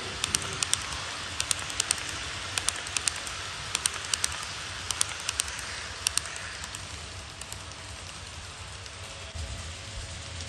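HO-gauge model passenger train rolling on the layout's track, its coach wheels clicking in quick pairs over the rail joints above a steady rolling hiss. The clicks die away after about seven seconds.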